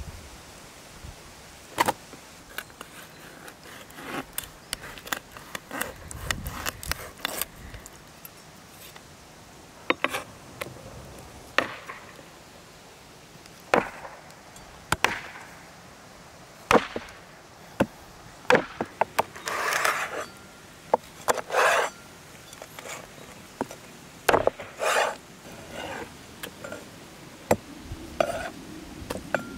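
Large knife cutting catfish on a wooden cutting board: irregular sharp knocks of the blade striking the board, with a few longer scrapes of the blade along the wood.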